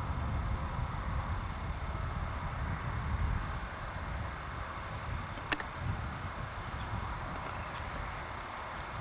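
Diesel locomotive idling: a low rumble, with a steady high insect buzz over it and a single sharp click about halfway through.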